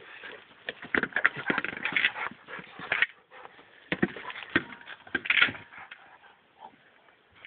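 Irregular scuffs and knocks as a dog chases and pushes a hard plastic Boomer Ball over dirt and grass. The sounds come in two busy stretches and quieten near the end.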